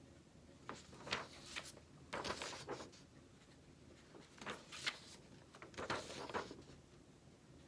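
Sheets of drawing paper rustling and flapping as they are handled and swapped, in several short, faint rustles.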